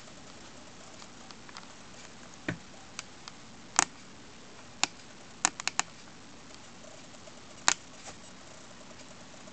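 Handling noise: about nine sharp clicks and taps over a faint steady hiss, including a quick run of four in the middle.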